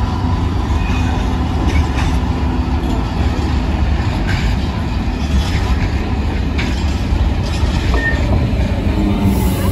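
Freight train of loaded hopper wagons rolling past behind a diesel locomotive: a steady deep rumble with the wheels clicking over rail joints at irregular intervals.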